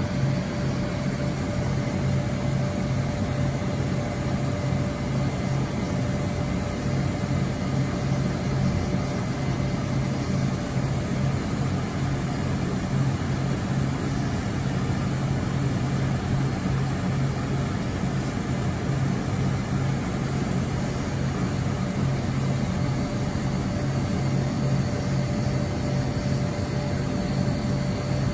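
WFL M35G Millturn CNC turning center running under power: a steady mechanical hum and whir with a constant mid-pitched tone over a low drone, unchanging throughout.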